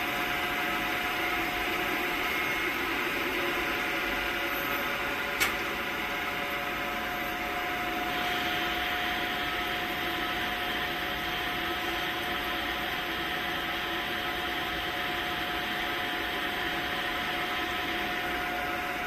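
Steady machinery hum and hiss on a PET preform injection moulding line, made of several steady tones over an even noise. One sharp click comes about five seconds in, and the hiss turns a little brighter from about eight seconds in.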